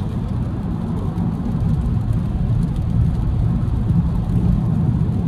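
Steady low road rumble heard inside the cabin of a 2022 Honda Civic Si at highway speed in heavy rain: tyres on the wet road and rain on the car, with no clear single event.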